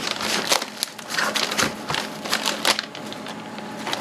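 Plastic anti-static bag around a graphics card crinkling and rustling as it is handled and lifted out of its foam packaging. The crackling is irregular and dies down about three seconds in.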